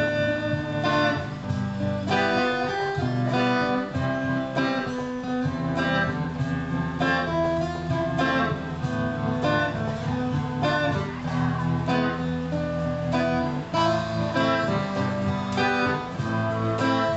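Acoustic guitar strummed in steady rhythm, playing chords in an instrumental passage with no singing.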